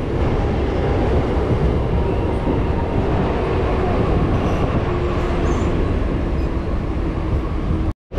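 Mumbai suburban local train running, a steady rumble and rattle of the electric coach heard from its open doorway. The sound drops out for a moment near the end.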